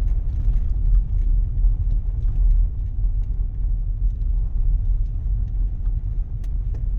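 Steady low rumble of a car driving, heard from inside the cabin, with faint scattered ticks and rattles.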